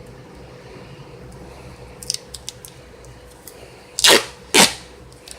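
Tape pulled off the roll in two short, loud rips about half a second apart near the end, after a few light clicks of handling.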